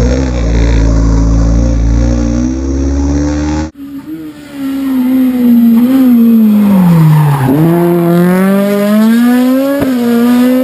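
Rally car engines at a hairpin. The first car pulls away with its revs climbing. After an abrupt cut about four seconds in, a second car approaches with its revs falling as it slows for the bend, lowest near the middle, then rising again as it accelerates out.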